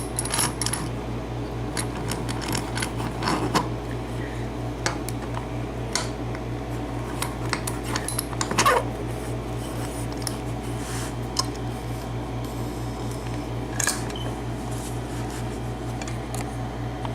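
Scattered light metallic clicks and taps of a small cylinder lock and lock-picking tools being handled, with a sharper cluster of clicks a little past halfway, over a steady low hum.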